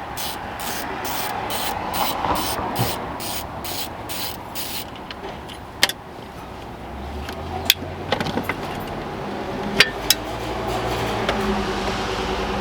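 A hand tool backing out the screws under a plastic steering column cover: rhythmic rasping strokes, about three a second, for the first five seconds, then a few sharp clicks.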